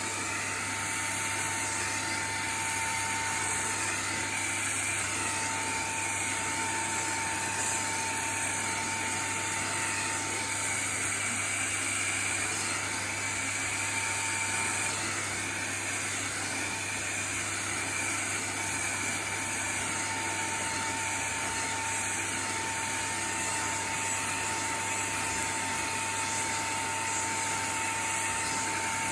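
Cordless handheld vacuum cleaner running steadily with a constant high whine, its narrow hose nozzle being drawn through a cat's fur.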